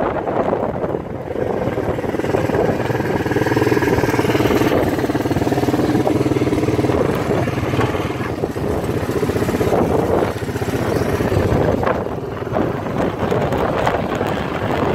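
1984 Honda TRX200 Fourtrax ATV's single-cylinder four-stroke engine idling steadily.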